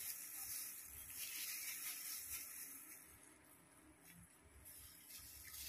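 Faint room tone with a steady hiss, and soft rustles of plastic-gloved hands tying up hair.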